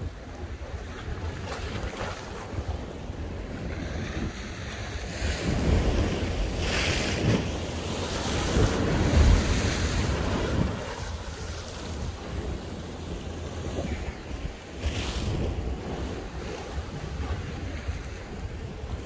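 Sea waves washing onto the shore, with wind buffeting the microphone; the surf swells louder for several seconds in the middle.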